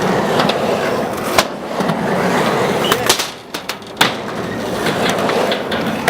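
Skateboard rolling on a ramp, with sharp clacks of the board striking: one about a second and a half in, a cluster around three to four seconds in, and another at the end.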